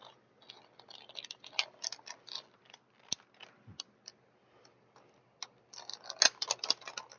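Plastic action-figure packaging being worked open by hand: a run of sharp clicks and crackles, sparse in the middle and coming thick and loudest near the end.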